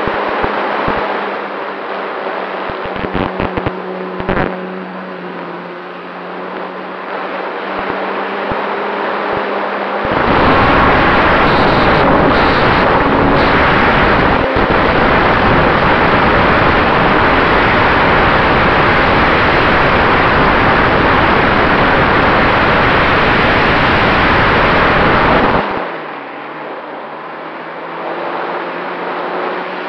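Radio-controlled Cessna 188 model airplane in flight, heard from its onboard camera: the motor and propeller give a steady hum over wind noise, with a few sharp clicks. About ten seconds in, a loud rush of wind buffeting the microphone covers the hum for about fifteen seconds while the plane banks hard, then the steady propeller hum returns.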